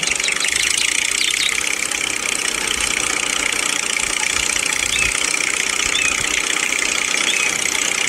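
Small motor and gears of a miniature model tractor running steadily as it pulls a loaded trolley. It gives a constant high whine with no change in pace.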